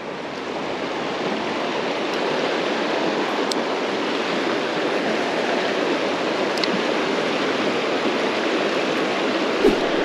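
Fast, shallow river water rushing steadily over rocks and riffles.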